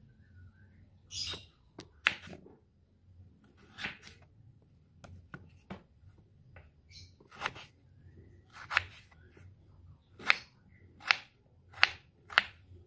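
Kitchen knife cutting a peeled potato on a wooden chopping board: sharp knocks of the blade striking the board, spaced out at first, then coming more regularly, about one every 0.7 s, near the end as the potato is diced.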